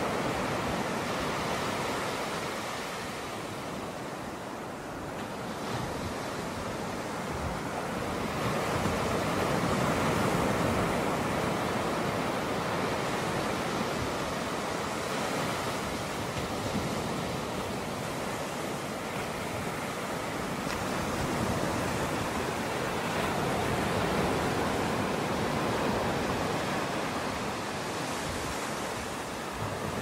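Ocean surf breaking and washing up a sandy beach: a steady rushing hiss that swells and eases slowly, dipping briefly about four seconds in.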